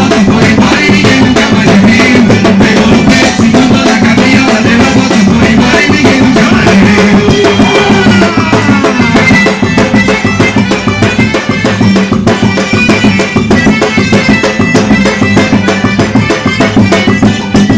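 Loud quadrilha junina music played with a steady drum beat.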